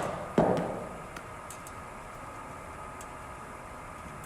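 A single sharp knock about half a second in, echoing as it dies away, then a few faint ticks over a faint steady hum.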